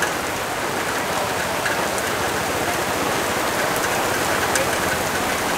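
Steady rain falling, an even hiss with a few sharper drop taps.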